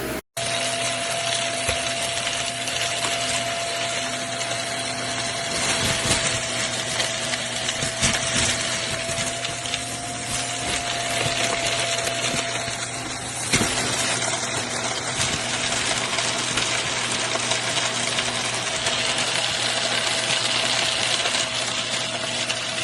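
Shark Stratos upright vacuum cleaner running: a steady motor rush with a constant whine, with a few knocks and clicks as it is worked.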